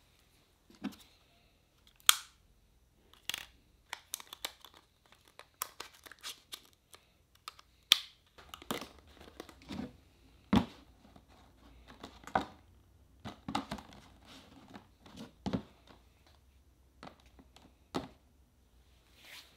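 Handling of a Canon EOS M200 mirrorless camera and its cardboard box and packaging: a string of separate clicks, taps and crinkles, the sharpest about two seconds in.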